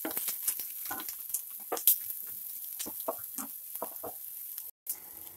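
Chopped green chillies and cumin seeds sizzling in hot oil in a nonstick frying pan, with a spatula stirring and scraping against the pan in irregular strokes, about two or three a second. Near the end the stirring stops and only a quieter sizzle goes on.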